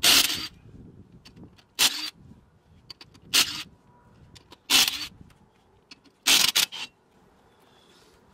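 Half-inch drive cordless electric impact wrench hammering in five short bursts about a second and a half apart, loosening the lug nuts on a garden tractor's rear wheel.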